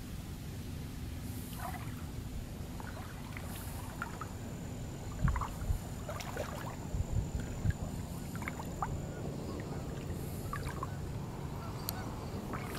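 Outdoor shallow-water ambience: a steady low rumble with small scattered clicks and chirps, like water lapping and ticking at the shore, and a few soft thumps about halfway through.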